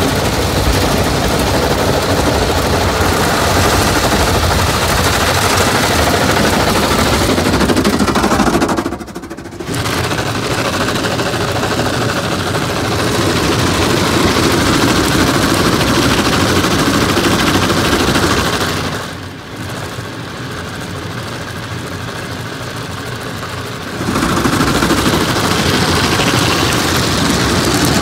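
Automatic car wash brushes heard from inside the car: spinning cloth strips slapping and scrubbing over the windows and body, with water spray, in a loud, dense noise. It drops briefly about nine seconds in and is quieter for several seconds from about nineteen seconds in.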